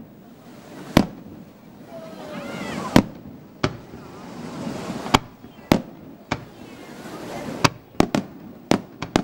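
Aerial fireworks shells bursting overhead: about ten sharp bangs at uneven intervals, some coming in quick pairs.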